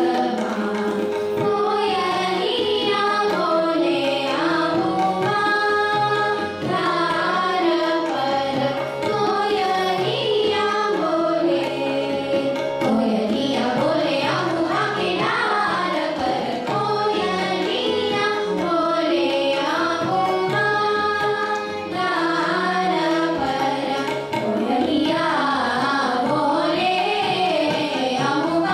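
Young girls' voices singing Hindustani classical vocal in raga Malkauns, with gliding, ornamented melodic lines, accompanied by tabla and harmonium.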